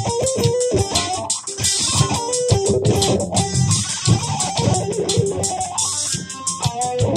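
Electric guitar played in a bluesy improvised jam: quick runs of picked single notes that change pitch constantly.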